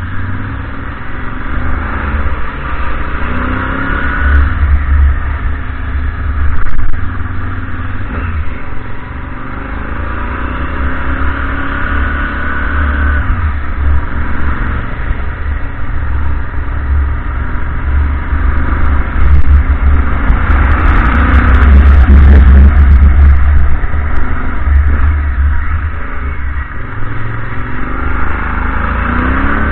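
Motorcycle engine heard from a camera mounted on the bike, its pitch rising and falling several times as it accelerates and eases off through the bends, over a heavy rumble of wind on the microphone.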